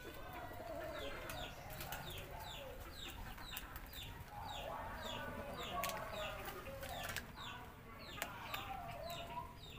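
Chickens clucking, with a small bird repeating a short falling chirp over and over, a few times a second.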